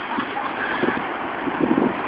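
Wind buffeting the microphone: a steady rushing noise, with faint voices in the background about a second and a half in.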